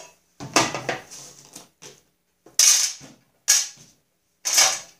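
Hard plastic engine covers from a mower engine being lifted off, set down and slid on a workbench: a series of four or five short clatters and scrapes, the loudest about halfway through.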